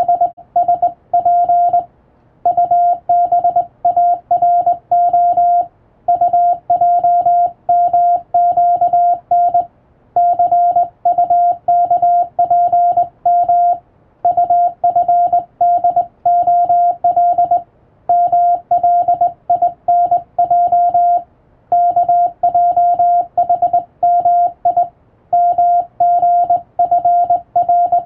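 Hand-keyed Morse code (CW) on a telegraph key: one steady beep switched into quick dots and dashes. It comes in runs of about three to four seconds with short pauses between them, sending English-letter telegram practice text.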